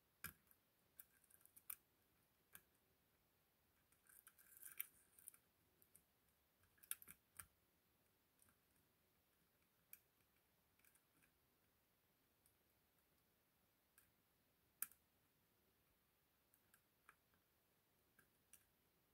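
Faint metallic clicks and scrapes of a hook pick and tension tool working the pins of an ASSA 6000 lock cylinder, irregular ticks with a busier run about four to seven seconds in and one sharper click near the end of the run of ticks.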